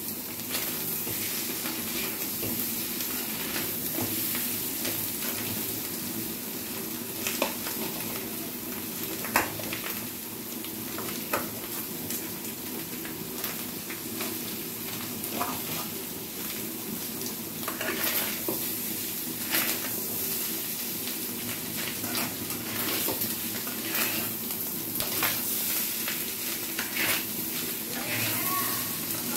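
Fish roe frying with onions and spices in a coated kadai, sizzling steadily, while a spatula stirs and breaks it into pieces. The spatula scrapes and knocks against the pan now and then.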